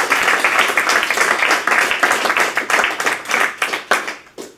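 Audience applauding, the clapping thinning out to a few last separate claps and stopping near the end.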